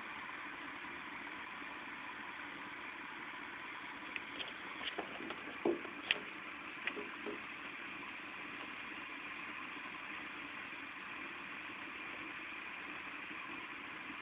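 Steady hiss of thunderstorm rain, with a short cluster of sharp taps and clicks about four to seven seconds in.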